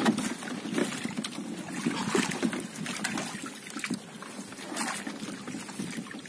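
Seawater splashing and trickling off a net-covered fish trap as it is hauled up out of the sea over a boat's side, with scattered knocks and rattles of the trap's frame.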